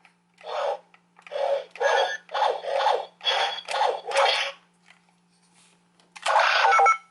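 Morph-X Key toy's electronic sound effects from its small speaker: a quick run of about ten short hissing bursts, then after a pause one longer burst near the end, over a faint steady hum.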